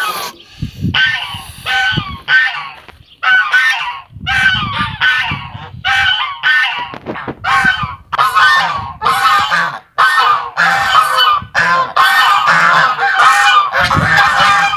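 Domestic geese honking, short loud calls again and again. They come faster and overlap in the second half as several geese call over one another.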